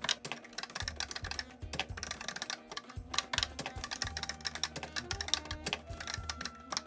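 Fast, dense clatter of keystrokes on a Commodore SuperPET keyboard as a COBOL program is typed in, played back sped up, over background music with a low bass line.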